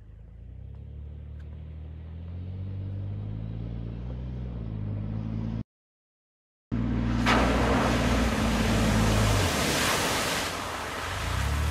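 Jeep Wrangler JK on 38-inch tyres approaching with its engine running, growing steadily louder. The sound cuts out for about a second midway. About seven seconds in the Jeep hits a muddy puddle: a loud splash of water and mud lasting about three seconds, with the engine still running under it.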